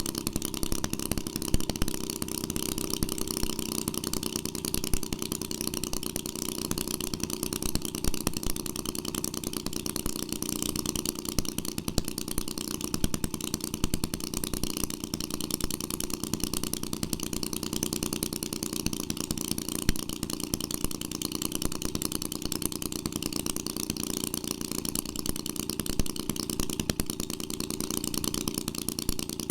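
1946 Maytag Model 72 twin-cylinder two-stroke engine running steadily on its first run after restoration, a rapid, even stream of firing pulses.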